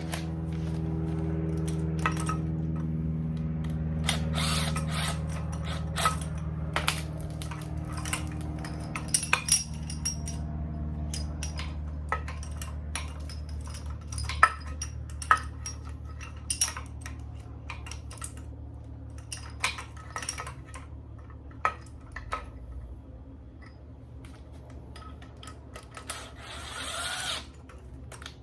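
Scattered metallic clinks and taps of hand tools on metal while a three-jaw puller is fitted onto an engine's crankshaft pulley, over a steady low hum.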